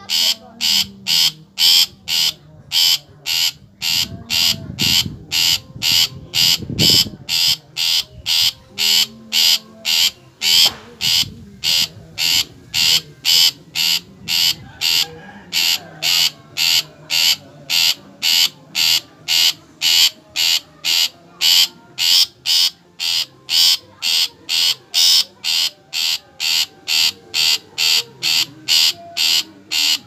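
Long-tailed shrike (cendet) giving a long unbroken run of harsh, rasping chattering calls, about two a second at an even pace.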